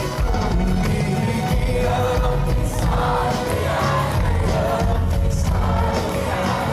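Live concert music: a singer with band accompaniment over a steady, heavy low beat.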